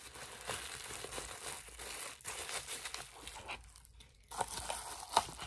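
Packaging crinkling and rustling as items are handled and unwrapped, with many small crackles and a short lull about two-thirds of the way through.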